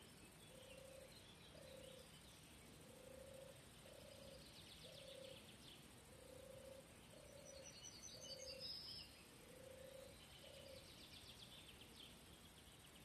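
Faint outdoor ambience: a distant frog calling in short, evenly spaced low notes, about one a second, with a few brief high bird chirps.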